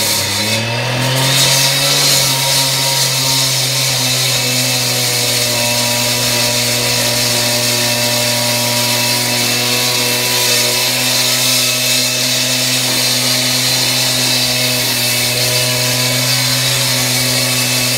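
Gas-powered two-stroke cut-off saw running at high speed, wet-cutting the concrete floor slab. It climbs in pitch over the first second or so, then holds a steady, loud scream for the rest of the time.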